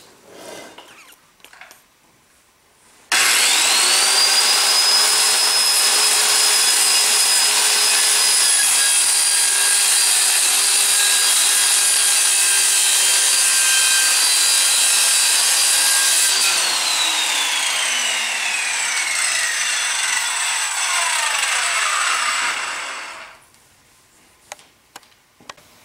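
Corded Skilsaw circular saw with a 10-inch blade starting up about three seconds in with a quick rising whine, then cutting steadily through a sheet of pegboard for about thirteen seconds. The trigger is released and the blade winds down with a falling whine, stopping near the end.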